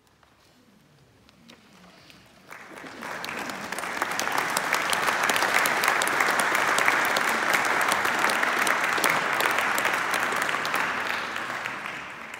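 Audience applauding: after a near-silent pause, clapping breaks out about two and a half seconds in, swells quickly, holds steady and begins to fade near the end.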